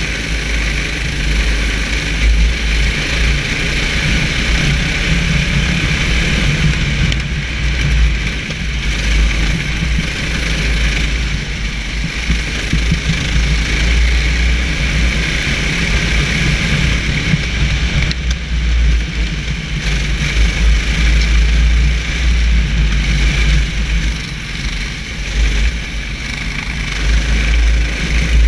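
Racing kart's engine running at speed, heard from the driver's seat over a heavy low rumble of wind. The sound eases briefly a few times.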